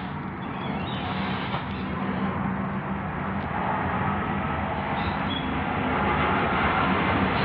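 Street traffic noise: a vehicle's rumble and road noise slowly growing louder as it approaches.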